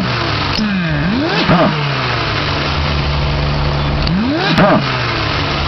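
Supercharged car engine idling, with the throttle blipped twice, about a second and a half in and again near four and a half seconds; each rev rises and falls quickly and is followed by a whine sliding down in pitch. This is the funny noise the owner puts down to the supercharger with back pressure.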